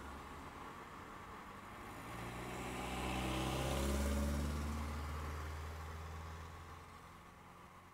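A motor vehicle driving past, its engine hum swelling to a peak about four seconds in and then fading away, heard from inside a parked car.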